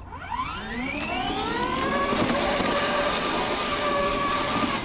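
Electric whine from a kids' ride-on car's two 12-volt 10,000 rpm drive motors, overdriven on an 18-volt Milwaukee tool battery. The whine rises steeply in pitch as the car pulls away, then holds steady while it drives.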